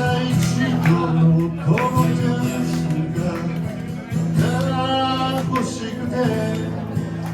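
A man singing while playing an acoustic guitar, the strummed chords ringing under his sung phrases.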